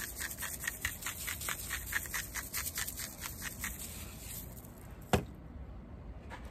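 Hand-twisted salt grinder cranked over food: rapid even clicking at about six a second that stops about four and a half seconds in. A single sharp knock follows about five seconds in, the loudest sound.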